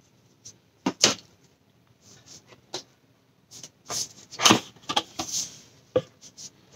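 A cardboard drone box being handled and opened: a couple of sharp knocks on the cardboard, then the lid sliding and scraping off the box with more knocks and rubbing, and a last knock near the end.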